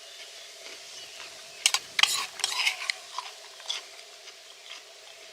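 Metal cutlery clinking and scraping on a plate, a quick cluster of sharp clicks and scrapes in the middle, cutting up steak. A faint steady hum runs underneath.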